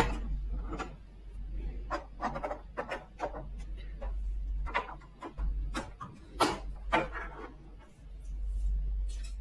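Plastic toy playset pieces being handled and set down on a tabletop: irregular clicks, taps and short scrapes, with a sharp click at the very start and two louder knocks about six and a half and seven seconds in.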